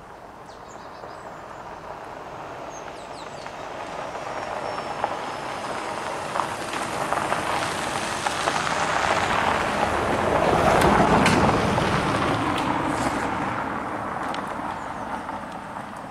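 A car driving along a dirt road and passing close by: the engine and tyre noise swells slowly, is loudest about eleven seconds in, then fades away.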